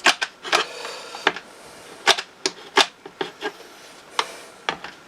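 Hot glue gun being worked around the mirror's edge: about a dozen irregular sharp clicks and taps of the trigger and nozzle as small dabs of glue go on.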